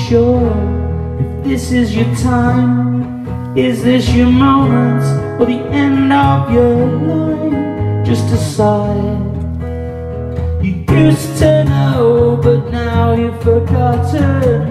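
Solo acoustic guitar strummed in a live song, chords struck every couple of seconds, with a man's voice singing over it.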